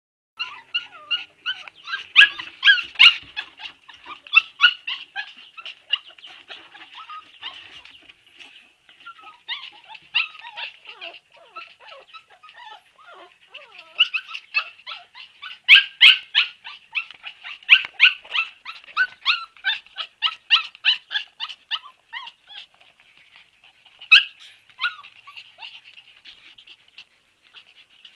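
Several Siberian husky puppies calling together in a chorus of short, high-pitched, overlapping calls, many a second, loudest about two seconds in and again around the middle.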